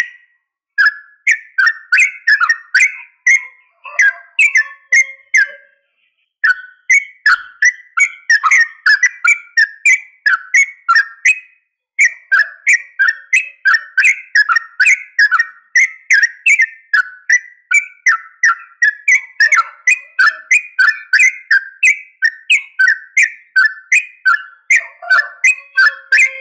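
Yellow-vented bulbul (trucukan) calls: a fast, unbroken chatter of short, sharp bubbling notes, a few per second, breaking off briefly about six and twelve seconds in. It is a lure recording of bulbul calls, which the uploader presents as a female calling a male.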